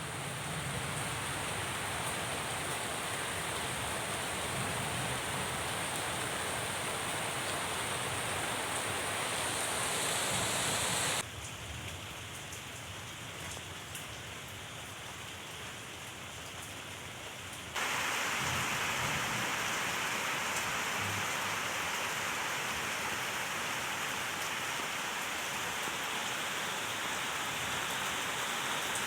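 Steady rain falling, an even hiss of drops. It drops abruptly quieter about a third of the way in and comes back up just as suddenly a few seconds later.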